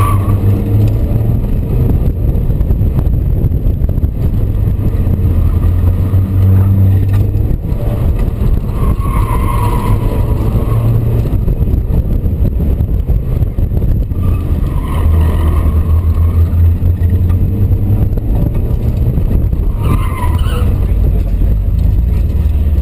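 In-car sound of a Mazda Miata on an autocross run: the engine runs hard, rising and falling with the throttle, over wind and road noise. The tyres squeal briefly about four times as the car is thrown through the cone turns.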